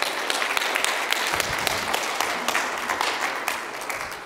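Church congregation applauding after a song, the clapping dying away near the end.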